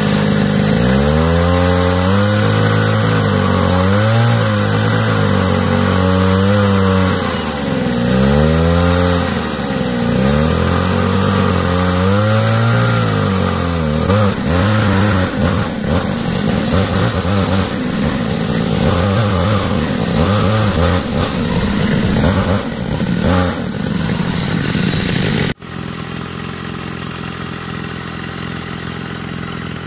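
Hydraulic pump of a homemade 1/8-scale Cat 390F RC excavator running under load while it digs, its whine dipping in pitch and recovering with each boom and bucket movement. Near the end the sound drops abruptly to a quieter steady hum.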